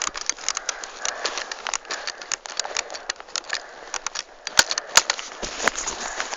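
Someone moving on foot through dry undergrowth: irregular crackling and rustling with the rattle of carried gear, and a few sharper clicks a little past the middle.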